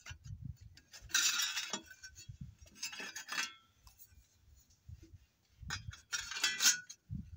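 Thin sheet-steel repair panels being handled on a wooden bench, clinking and scraping against each other in three short spells with a slight metallic ring.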